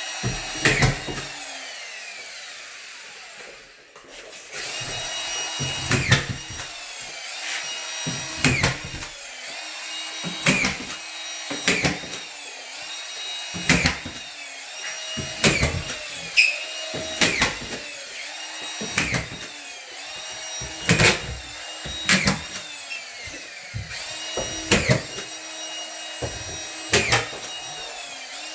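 Collated drywall screw gun running continuously, with a short, loud burst every two seconds or so as each screw is driven into the drywall. About four seconds in the motor winds down and stops briefly, then starts up again and the screws go on being driven one after another.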